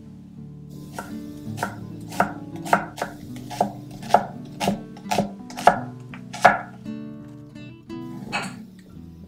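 Chef's knife slicing a red onion on a wooden cutting board: a steady run of about a dozen crisp cuts, roughly two a second, each ending in a knock of the blade on the board, the last few the loudest. Near the end comes a brief, softer rolling sound as cherry tomatoes tumble onto the board.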